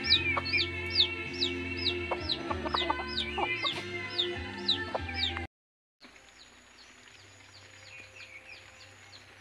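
Native chickens clucking, with a quick run of high, falling peeps about two or three a second, over steady background music. The sound cuts out about halfway through and comes back much quieter, the peeps still faint.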